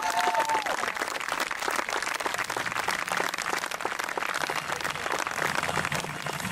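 Crowd clapping and applauding in a dense, steady patter, with a voice calling out briefly at the start. Faint music comes in underneath from about the middle.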